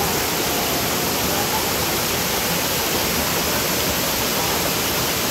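Loud, steady rush of a waterfall: falling water hissing evenly, with no breaks.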